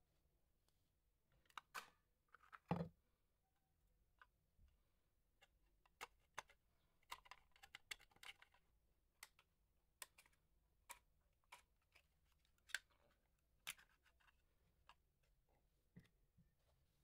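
Small plastic speaker box being taken apart by hand with a screwdriver: scattered light clicks and taps of plastic and metal, a louder knock about three seconds in, and a short stretch of scraping around the middle.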